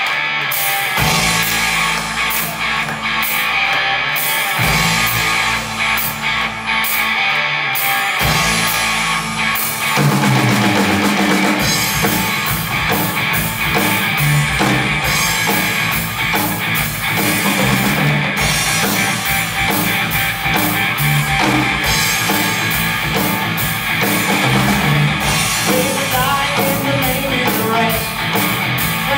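Live 1960s beat-group rock and roll from a band of electric guitars, bass guitar and drum kit. It opens with held chords, and the full band comes in with a steady drum beat about ten seconds in.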